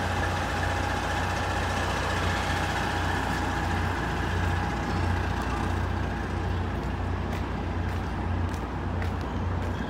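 Semi truck's diesel engine idling with a steady low hum, plus a steady whine that fades out about halfway through.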